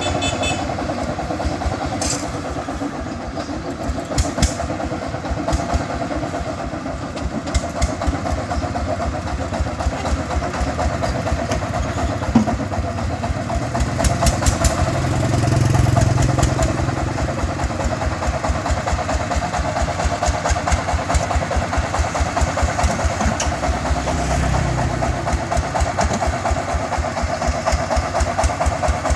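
The single-cylinder diesel engine of a công nông farm-tractor cargo vehicle running with a steady, rapid chug. A deeper engine sound swells up about halfway through and again more briefly later.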